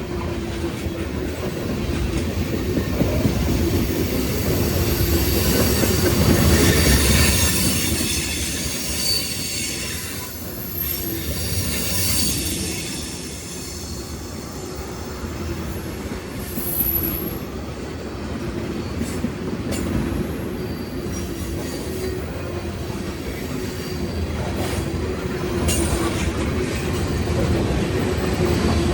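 Freight train cars rolling past, steel wheels on the rail with a steady rumble. There are brief high-pitched flange squeals, one about a third of the way in and another a little past halfway.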